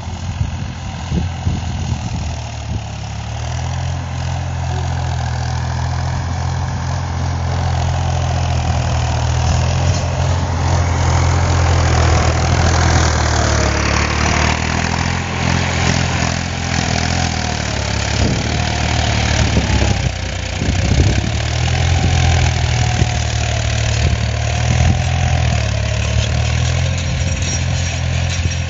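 Tractor engine running steadily under load as it pulls a tillage implement through dry soil. The hum grows louder over the first several seconds, then holds with slight rises and falls in pitch.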